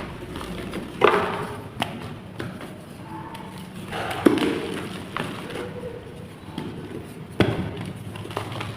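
Chalk clay blocks being crushed and crumbling, a steady gritty crumble broken by sharp cracks as pieces snap: about a second in, again near the middle and near the end.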